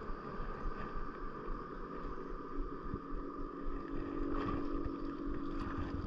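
Boat's outboard motor running steadily at slow trolling speed, with wind rumbling on the microphone. A steady hum comes in about two and a half seconds in.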